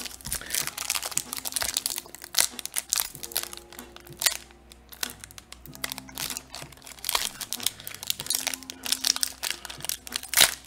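Foil Magic: The Gathering booster-pack wrapper crinkling in irregular sharp crackles as it is handled, with soft background music underneath.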